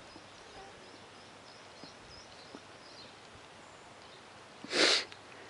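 Faint bird chirps over a quiet rural background, then a single short, loud sneeze just under a second before the end.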